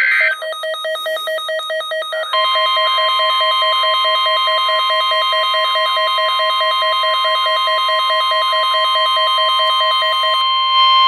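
Emergency Alert System alert signal for a test tornado warning: a rapidly pulsing electronic tone, joined about two seconds in by a loud steady tone. The pulsing stops shortly before the end while the steady tone holds.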